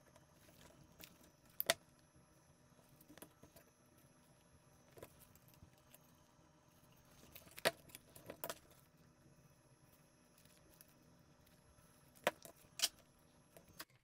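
Faint clinks and sharp clicks of small metal parts and hand tools being handled while wire terminals are fitted to the cable end, about five sharper clicks scattered through.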